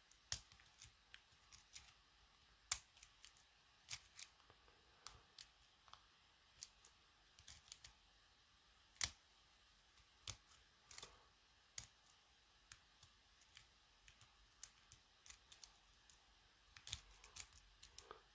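Faint, irregular metallic clicks and ticks of a short hook pick working up and down the pin stacks of a Schlage C keyway key-in-knob cylinder held under tension, searching for binding pins. The clicks come singly and unevenly spaced, with a couple of sharper ones about three and nine seconds in.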